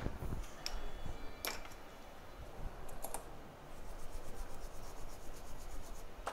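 Light clicks, taps and rubbing from small objects being handled, with several sharp separate clicks and a stretch of faint rapid ticking near the end.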